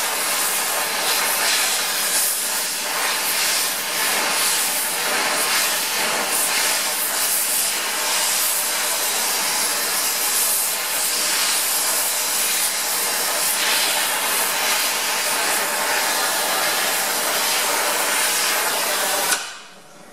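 Oxy torch flame hissing steadily as it heats a steel axle bearing collar to red heat for a shrink fit, then shut off abruptly near the end.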